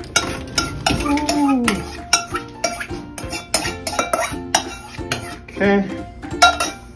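Spoon scraping and clinking against a ceramic mixing bowl as thick casserole mixture is spooned out into a baking pan: a string of irregular clinks and scrapes, over background music.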